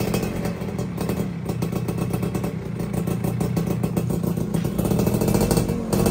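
Yamaha underbone motorcycle engine running at a steady fast idle, with an even pulsing note that grows slightly louder toward the end.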